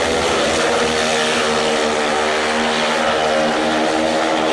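Several speedway motorcycles racing together, their 500 cc single-cylinder engines running at high revs in a steady drone with pitches that shift and overlap.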